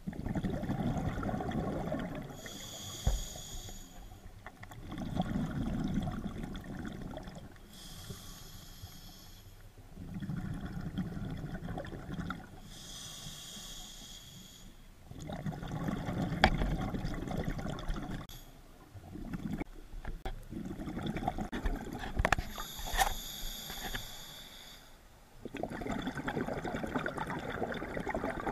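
A scuba diver breathing underwater through a regulator, heard through the camera housing: slow, regular breaths about every five seconds, alternating a hiss with a rush of exhaled bubbles.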